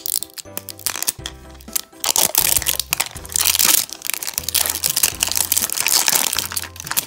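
Thin clear plastic wrap crinkling and crackling as fingers peel it off a hard plastic capsule ball, loudest from about two seconds in, over background music.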